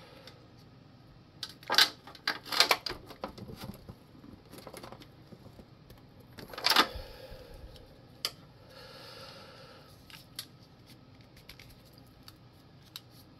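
Hand-handling noises as plastic heat shrink tubing is stretched and worked over a pair of RC boat ESCs. There are scattered clicks, rustles and small knocks, with a cluster of sharp ones about two seconds in, the loudest a little after six and a half seconds, and single ticks after that.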